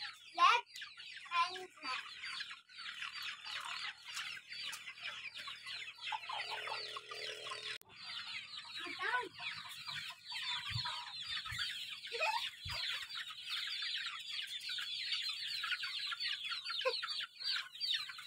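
A large flock of chickens in a shed: a dense, continuous chorus of high chirping, with now and then a louder single cluck from one bird standing out.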